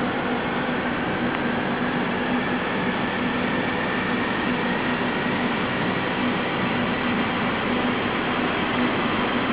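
SNCF Z 6100 electric multiple unit (three sets coupled) starting to pull out of the station: a steady electrical hum and running noise, with faint tones rising slowly in pitch as it gets under way.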